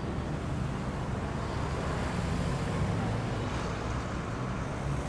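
Steady low engine rumble of outdoor city ambience, with some wind noise on the microphone.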